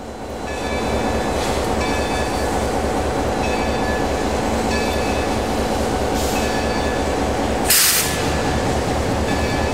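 Baldwin Locomotive Works No. 26 steam locomotive standing under steam: a steady, busy mechanical running sound with a fast low pulsing that rises in over the first second. Faint tones come and go about every second and a half, and there is a short, loud hiss about eight seconds in.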